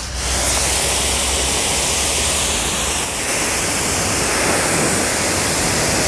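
High-pressure water jet from a QPT by StarQ QT-30 commercial pressure washer spraying onto a car's windshield and bonnet: a steady hiss of spray and splashing water.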